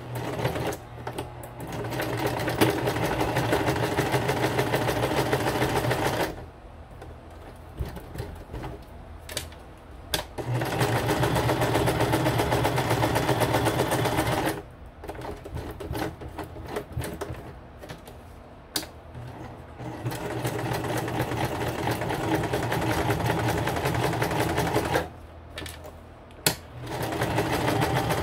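Electric home sewing machine sewing a zigzag stitch through layered paper cards, running four times for a few seconds each and stopping in between.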